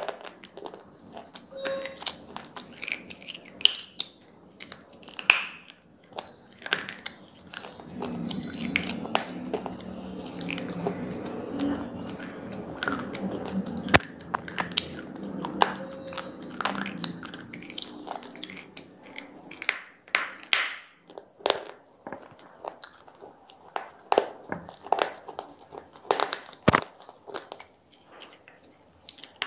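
Big square pieces of slate bitten and chewed: many sharp, brittle crunches one after another, with a stretch of steadier grinding chewing about a quarter to halfway through.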